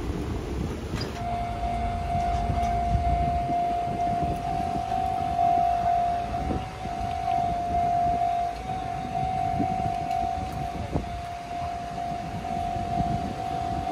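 Japanese level-crossing warning bell starting about a second in and ringing on at one steady pitch as the crossing barriers come down, over low wind and traffic rumble.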